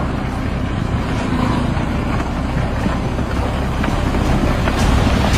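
Heavy road-building machine running steadily, its engine giving a constant low rumble.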